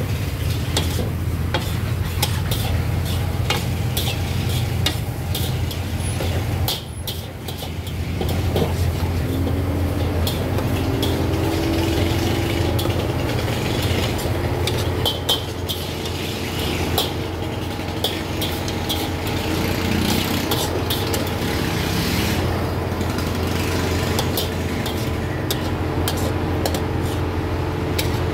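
Stir-frying in a wok: a metal spatula clanks and scrapes against the pan over sizzling, with many sharp clicks throughout and a steady low hum underneath.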